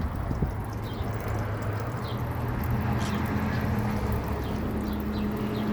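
A small pet bird giving short, high chirps now and then over a steady background hum and hiss.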